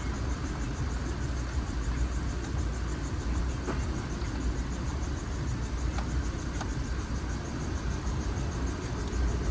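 2015 Ford Explorer's 3.5-litre V6 idling steadily, heard from the driver's seat with the climate-control blower running. A few faint clicks of the dash control knobs being turned.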